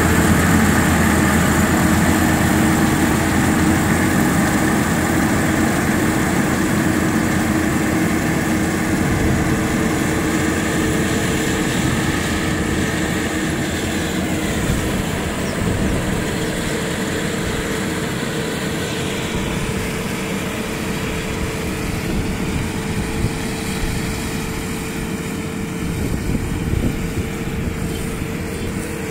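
Kubota rice combine harvester running while it harvests rice: a steady engine hum with constant whining tones, growing gradually fainter as the machine moves away.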